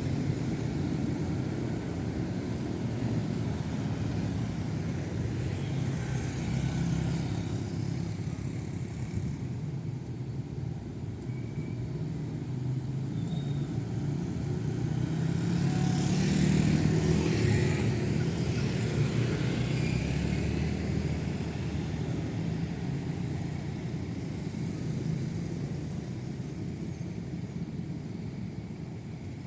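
Steady main-road traffic of motorcycles and cars: engines running and tyres on asphalt. One louder vehicle goes past a little after halfway.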